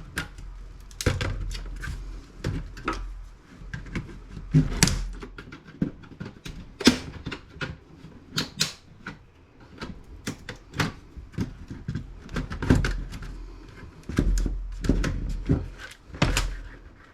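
Plastic case of an old Dell laptop being pried and forced apart: an irregular string of sharp clicks, snaps and knocks as the stuck clips and panels are worked loose.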